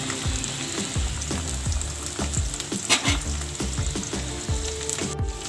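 Freshly added okra sizzling in hot oil in a steel wok, stirred and turned with a slotted spatula. Soft background music with a low beat plays underneath.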